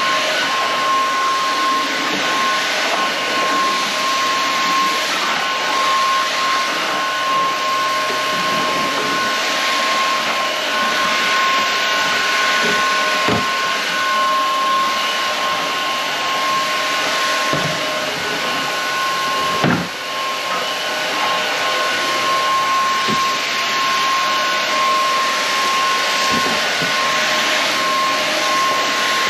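Inse S610 cordless stick vacuum running steadily as it cleans the floor, a constant motor whine over the rush of air, with a few short knocks about a third and two thirds of the way in.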